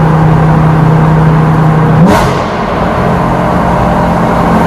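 Lamborghini Gallardo LP560-4's V10 engine with an Armytrix exhaust, heard from inside the cabin in a tunnel: it runs steadily, then about two seconds in the revs climb quickly under acceleration with a sharp crack, and it carries on at higher revs.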